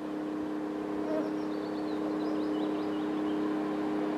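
Engine of an approaching Ttm3 track work train, a steady drone growing slowly louder.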